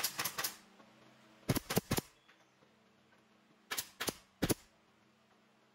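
Pneumatic nail gun firing nails into wooden chair slats: three quick groups of sharp shots, a few in each, with short pauses between.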